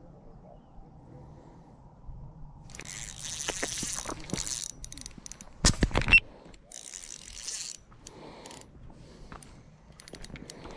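A hand handling a body-worn camera, rubbing and scraping against the housing and mount, with a short cluster of loud knocks on the microphone about halfway through.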